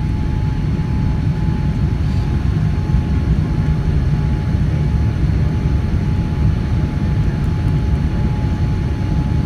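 Boeing 787-9 Dreamliner in flight on approach: a steady low rumble of engines and airflow, with a faint constant whine on top.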